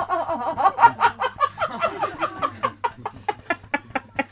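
A person laughing in a fast, unbroken run of short voiced bursts, about five or six a second.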